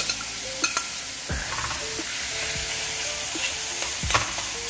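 Minced beef sizzling in hot oil in a frying pan, with onion and garlic, while it is stirred; the utensil knocks against the pan a few times.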